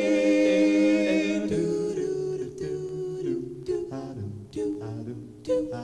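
Male a cappella group singing close harmony into microphones. A held chord lasts about a second and a half, then the voices switch to short, clipped backing notes over a sung bass line.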